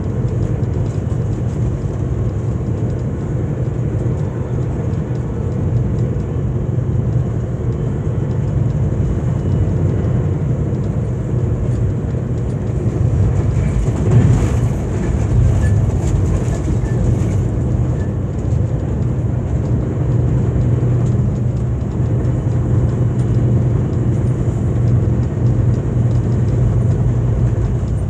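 Steady rumble of a VIA Rail passenger train running at speed, heard inside the coach: wheels on rail with a low, even drone. About halfway through there is a brief louder rush before it settles back.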